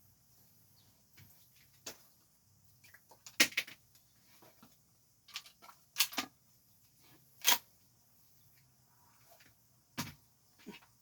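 APS CAM870 MK3 shell-ejecting airsoft pump-action shotgun being reloaded by hand: a series of separate sharp plastic-and-metal clacks from shells and the action, the loudest about three and a half and seven and a half seconds in.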